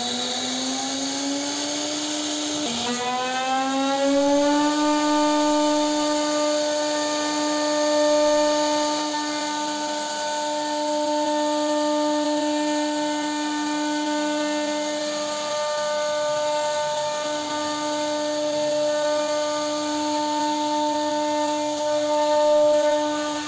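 CNC router spindle running as its bit routes a groove into a solid wood door panel: a steady whine that climbs in pitch over the first few seconds, then holds level.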